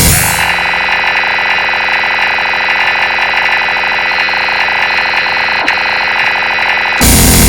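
Electronic alarm-style ringtone: a steady, rapidly pulsing buzzy tone that cuts off abruptly about seven seconds in.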